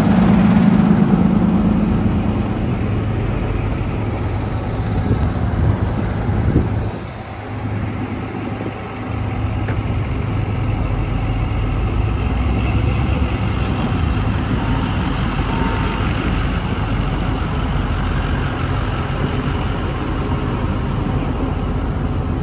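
Fire-rescue truck engine idling close by, a steady low rumble that is strongest in the first couple of seconds and dips briefly about seven seconds in.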